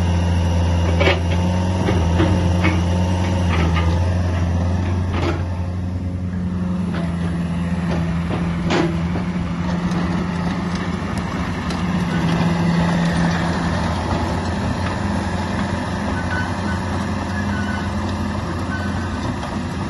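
Kubota KX151 tracked excavator's four-cylinder Kubota diesel engine running steadily, its note shifting slightly a few times, with a few sharp knocks from the machine.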